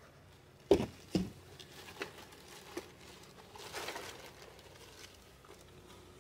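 Cardboard and plastic packaging being handled: two sharp knocks about a second in, a few lighter clicks, then a short rustle of cardboard and plastic wrap near the middle.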